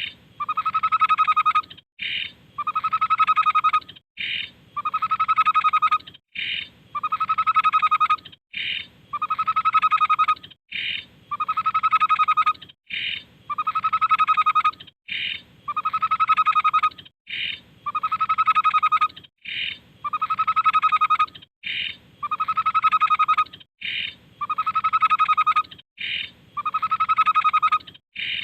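Tepus babbler song played on a loop. Each phrase is a short, higher note followed by a longer, lower, wavering note of about a second, and the phrase repeats about every two seconds.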